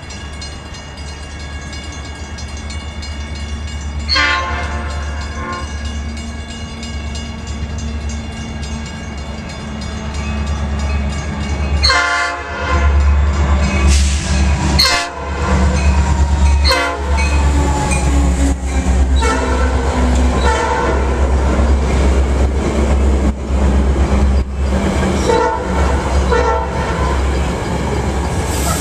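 Metra MP36PH-3S locomotive 411 sounding its Nathan Airchime P5 horn in several long blasts with short breaks as the commuter train approaches, getting louder. In the second half the locomotive and its bilevel coaches run past, with wheel and engine noise under the horn.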